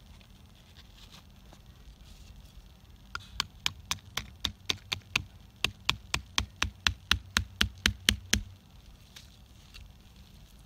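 A hammer tapping a ground pin into the soil to hold down insect netting: about two dozen quick, sharp strikes, roughly four a second, starting about three seconds in with a short break midway and stopping a couple of seconds before the end.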